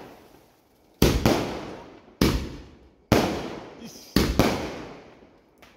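Firecrackers going off: six loud bangs in the span of about three and a half seconds, two of them in quick pairs, each trailing off in an echo.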